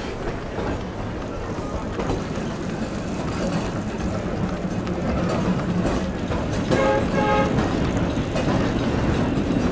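Added street sound for a tram ride: a steady rumble of a tram and street traffic rolling, growing louder, with a short pitched toot about seven seconds in.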